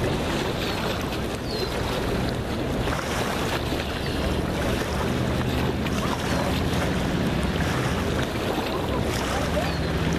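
Steady wind buffeting the microphone, with river water lapping against the rocky bank.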